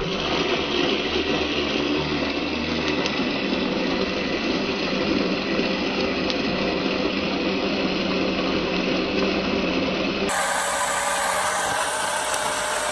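Hotsch rechargeable portable blender running, its small motor and blades churning a thick green smoothie in the bottle with a steady whirr. About ten seconds in, the sound shifts as the bottle is tipped on its side to help the small container blend.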